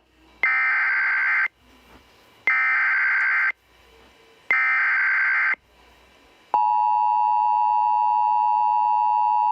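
Emergency Alert System SAME header: three one-second bursts of screeching data tones, about a second apart. About two-thirds of the way in comes the EAS two-tone attention signal, a steady, loud dual tone that holds on, marking the start of a new warning.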